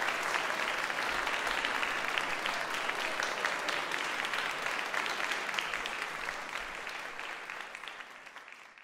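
Audience applauding with dense clapping that fades out gradually toward the end.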